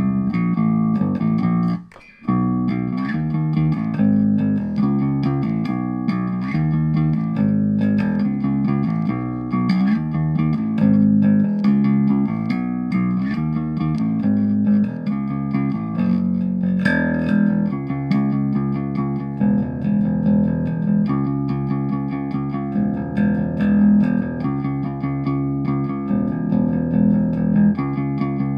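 Squier Affinity Precision Bass (electric bass guitar) played fingerstyle: a steady run of plucked bass notes in a groove, with a short gap about two seconds in.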